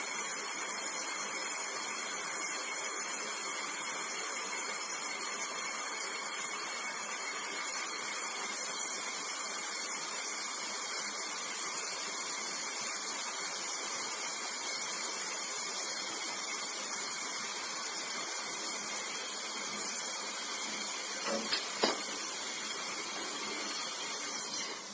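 Oxy-fuel brazing torch flame hissing steadily while it heats a brazed copper pipe joint on an air conditioner's four-way reversing valve to free it. Two short knocks sound near the end.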